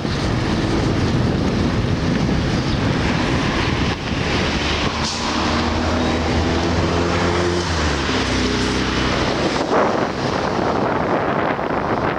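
A car driving along a city street: wind buffeting the microphone over road noise, with a vehicle engine's hum shifting in pitch from about five to nine seconds in.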